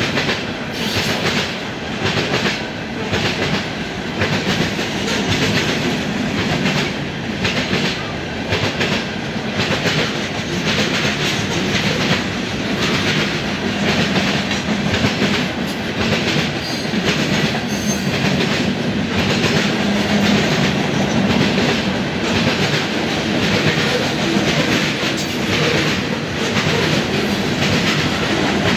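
Freight train rolling past, its car wheels clacking over the rail joints again and again over a steady rumble.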